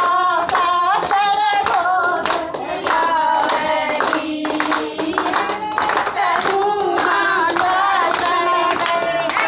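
Women singing a Haryanvi folk wedding song (bhaat geet) in unison, with steady rhythmic hand clapping keeping the beat.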